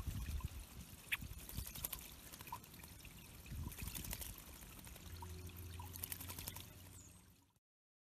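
Water trickling and pouring steadily into a shallow rock pond, with faint drips and light splashes. It cuts off near the end.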